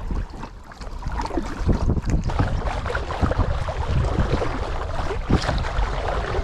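Water splashing and lapping around a kayak being paddled on a lake, with small irregular splashes, under a steady rumble of wind on the microphone.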